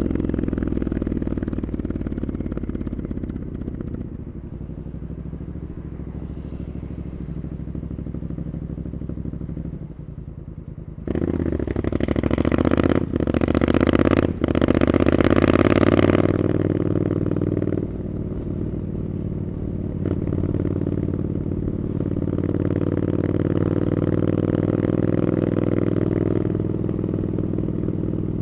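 Triumph Scrambler 900's parallel-twin engine through Arrow exhaust pipes, riding at a steady pace. About ten seconds in the engine eases off, then opens up louder for several seconds with two brief drops in sound, before settling back to a steady run.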